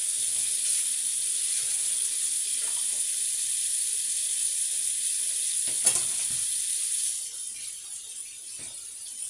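A steady high hiss with a single click about six seconds in; the hiss drops to a lower level about seven seconds in.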